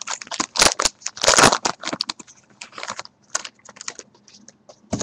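Trading card packs and cards being handled: foil wrappers crinkling and cards rustling and clicking in quick, irregular bursts that thin out toward the end.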